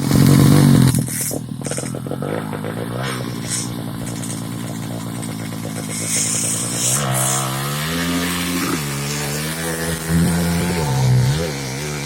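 Racing motorcycle engines at full throttle on a circuit. The first second is the loudest, then a steady high engine note; from about halfway the pitch rises and falls repeatedly with revving and gear changes.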